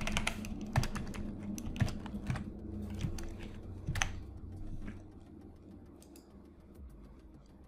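Computer keyboard keystrokes: a scattered handful of sharp clicks over the first four seconds, then fainter and sparser.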